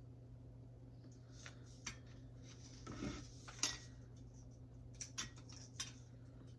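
A few short, light clinks and knocks of kitchenware being handled, such as glass jars, metal lids and the slow cooker's crock, spaced irregularly over a steady low hum.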